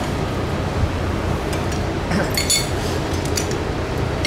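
Metal hand tools clinking against aircraft engine cylinder hardware: a few light metallic clinks and short rings, a cluster of them about halfway through, over a steady low rumble.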